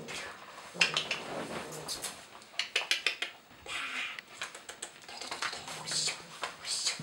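A border collie puppy scrabbling and playing on a hard floor: a scatter of sharp clicks and clatters, in quick runs about a second in and again around three seconds in.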